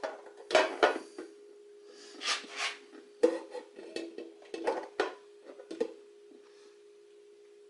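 Irregular clinks and knocks of metal engine parts being handled, about ten in the first six seconds. A steady hum runs under them throughout.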